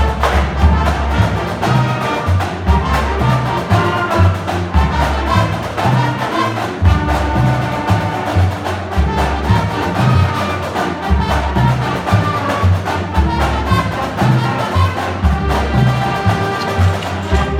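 High school band playing, with brass carrying the melody over a heavy low end and drums keeping a steady beat.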